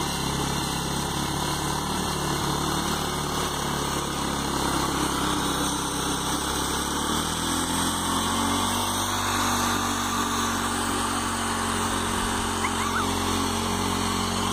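Small engine of a homemade tractor running steadily under load while it drags a tillage tine through sandy soil; its note changes about seven seconds in.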